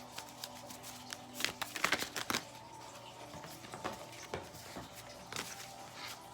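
Tarot cards being handled and laid out: light rustles and sharp card snaps, a quick cluster about two seconds in and scattered single clicks after.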